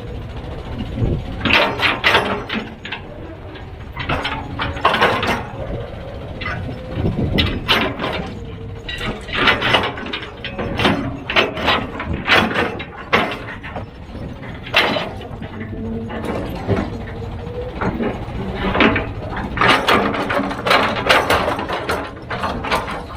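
Heavy machinery engine running steadily, with frequent sharp metallic clanks and knocks at irregular intervals.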